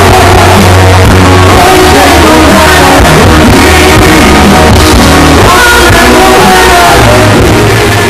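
Live band music with a woman singing into a microphone over guitar and a steady bass line; the sound begins to fade out near the end.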